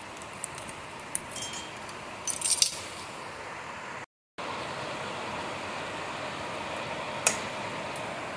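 Metal tools and drum-brake parts clinking and rattling during hand work on the brake: scattered light clicks, a short cluster of louder clinks about two and a half seconds in, and one sharp click near the end, over a steady hiss.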